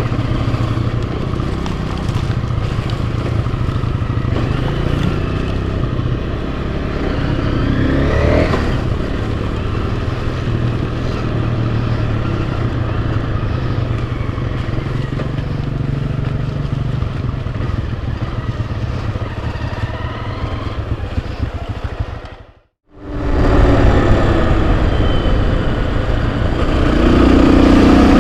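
Enduro motorcycle engine running while riding a trail, revving up about a third of the way in. The sound drops out for a moment near the end and comes back louder.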